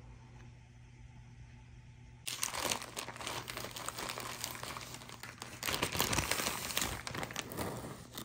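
Plastic zip-top freezer bag (Great Value) full of frozen-bound samosas crinkling and crackling as it is handled, starting suddenly about two seconds in after faint room hum.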